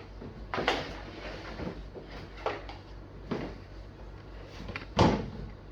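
Plastic parts of a children's slide set being handled during assembly: a handful of separate knocks and clacks, the loudest about five seconds in.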